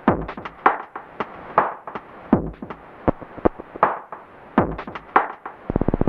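Electronic music: sharp percussive hits, several with falling swoops, in an uneven beat, turning into a fast buzzing roll near the end.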